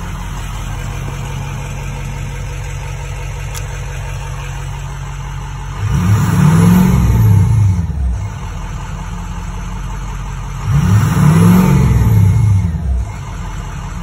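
Ford 6.0 Power Stroke V8 turbo-diesel idling, heard from inside the cab, and revved twice, each time rising for about two seconds and falling back to idle. This is a test rev to try to make the starter randomly engage, and no starter grind is heard.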